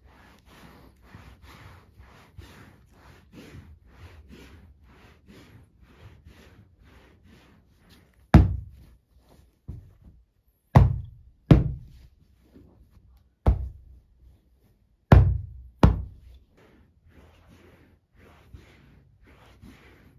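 Microfibre cloth on a hand scrubber rubbing back and forth over a fabric sofa, about three strokes a second. Around the middle, about six loud, dull thumps of a hand patting the upholstered sofa arm, then the rubbing starts again near the end.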